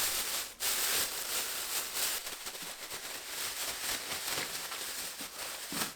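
Plastic bag rustling and crackling as it is shaken with cut scallion pieces, rice flour and perilla seed powder inside, coating the scallions in powder.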